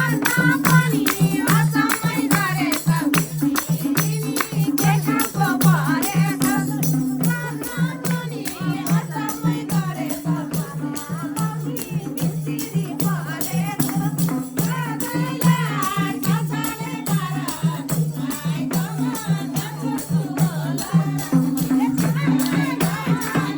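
Nepali dohori folk music played live: an instrumental passage with a steady beat and jingling, rattling percussion, a pulsing low accompaniment and a wavering melody line above it.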